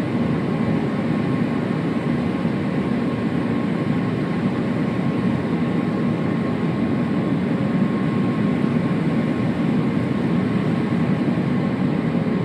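Steady cabin noise of an Airbus A350-900 airliner in flight: a low, even rush of its Rolls-Royce Trent XWB engines and airflow, with faint steady hums on top.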